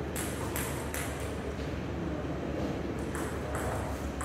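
Table tennis rally: the ball clicking sharply off the paddles and table in quick succession. A run of hits comes in the first second or so, a pause of about two seconds follows, then another run of hits starts about three seconds in.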